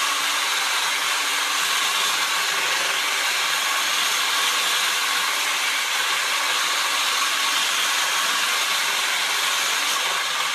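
Handheld electric mixer running steadily with its whisk in a stainless steel bowl, whipping egg whites as they begin to foam toward soft peaks.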